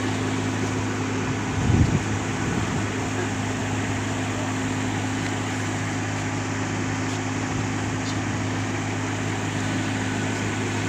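Kubota DC-35 combine harvester's diesel engine running steadily, with a short, louder low rumble about two seconds in.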